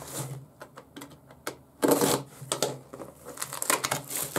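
A small parcel box and its packaging being opened and handled by hand: a run of irregular clicks and rustles, with a louder rustle about two seconds in.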